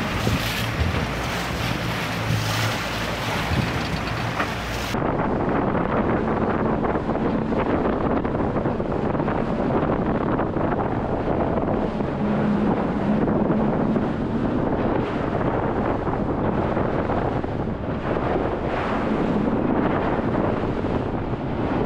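Sea waves and a tour boat's outboard motors heard from the water. About five seconds in the sound changes abruptly to an on-board recording of the boat under way at speed: wind buffeting the microphone over a steady engine drone and water rushing and spraying past the hull.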